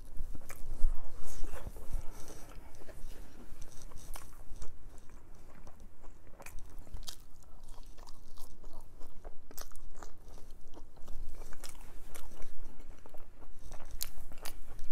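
A person chewing and biting food close to the microphone: crinkle-cut french fries and a chicken cheesesteak sandwich with half-cooked crunchy vegetables, with many sharp crunches and wet mouth clicks scattered throughout.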